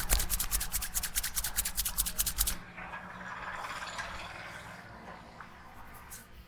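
Hands rubbing vigorously through oiled hair and scalp in a head massage: rapid strokes, about ten a second, for the first two and a half seconds, then softer, quieter rubbing.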